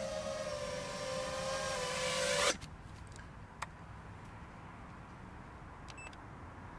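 Motors of an Armattan Rooster FPV quadcopter running on 6S, a steady whine that grows louder and then cuts off abruptly about two and a half seconds in. After that only a faint steady background with a single click.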